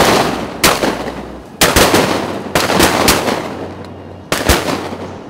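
A volley of shotgun blasts from several hunters at ducks overhead, about seven shots, some nearly on top of each other, each trailing off in a long echo through the timber.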